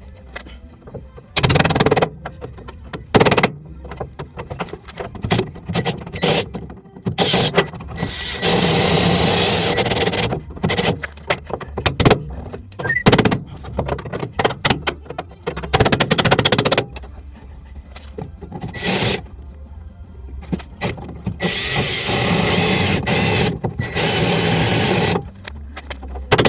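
Power drill boring out spot welds in a car's steel rocker panel, running in bursts of a few seconds, with sharp metal knocks and taps in between.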